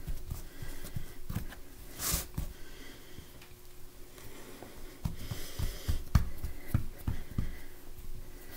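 Soft handling noises of pie dough being pressed and crimped into a dish by hand: scattered light knocks of the dish on the counter and fingers working the pastry, with a brief rush of noise about two seconds in and a faint steady hum beneath.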